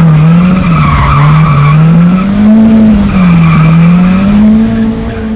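Turbocharged car engine fitted with throttle-bypass anti-lag, running hard at high revs as the car slides through a turn on loose dirt, its pitch swinging slowly up and down with the throttle over a steady rush of tyre and gravel noise.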